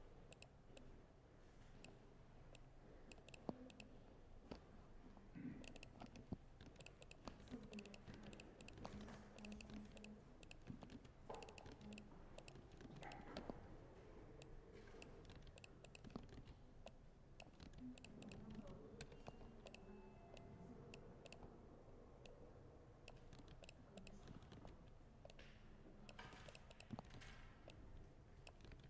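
Faint, irregular tapping of keys on a laptop keyboard, the keystrokes coming in quick runs with short pauses, over a low murmur of room sound.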